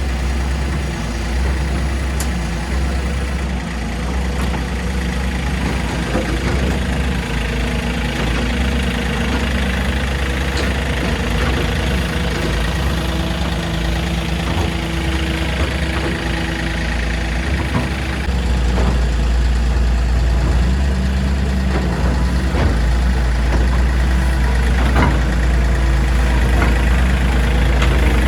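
Heavy machinery engine running steadily, with a few short knocks and clunks from the work. The engine gets louder about two-thirds of the way through.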